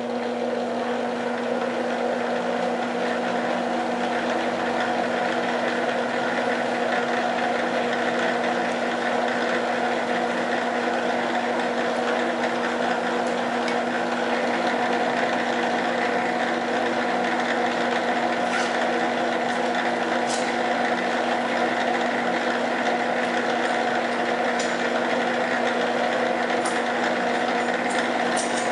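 Smithy Granite G1324 mill/lathe combination machine with its lathe spindle and empty chuck turning unloaded, giving a steady motor and gear-train hum and whine. There are a few faint ticks in the last third.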